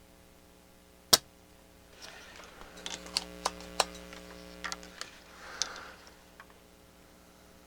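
Handling of tools and parts on an electronics workbench: one loud sharp click about a second in, then a run of small clicks and taps for a few seconds over a low hum, and a short hiss near the end.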